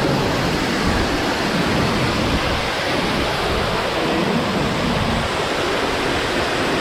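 Waterfall rushing steadily into a rock pool, a constant loud wash of falling water.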